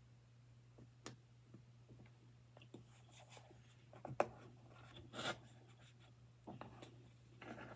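Faint rubbing, scratching and small clicks of baby powder being handled and mouthed from a container and squeeze bottle, with a sharper click about four seconds in, over a low steady hum.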